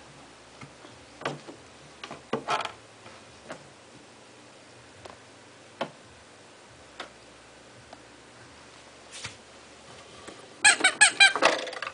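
Scattered light knocks and taps on the plastic body of a Little Tikes Cozy Coupe ride-on toy car as a baby moves about inside it, then a burst of rapid high-pitched squeaks lasting about a second near the end.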